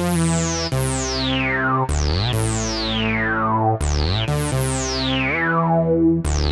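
Minimoog-sampled synthesizer patch (Syntronik Minimod) playing a sequence of sustained bass-and-chord notes, each struck bright with a resonant filter sweeping down over about a second before the next note.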